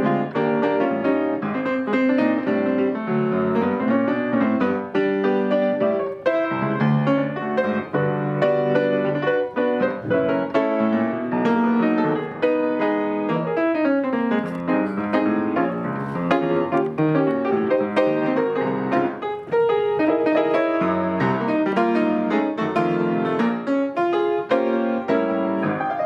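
Piano music, a quick flow of notes and chords.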